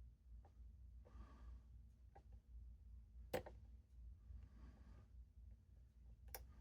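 Faint, sparse clicks of a lock pick working the pins in a padlock's keyway under a tension wrench, the sharpest about halfway through and another near the end, over a low room hum.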